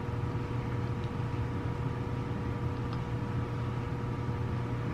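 Steady low mechanical hum with a faint steady whine above it, unchanging throughout.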